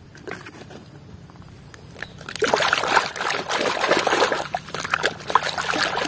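A few faint clicks at first, then from about two seconds in, foamy muddy water sloshing and splashing as a hand scrubs a toy under the surface in a tub.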